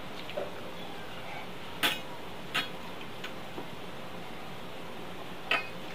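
Three sharp metallic clinks, spread irregularly, as metal bangles and rings knock against a steel plate while rice is mixed and eaten by hand. They sit over a steady background hiss.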